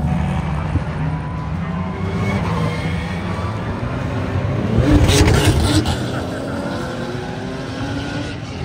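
Race car engines at speed, several rising and falling engine notes overlapping, with one car passing close and loud about five seconds in.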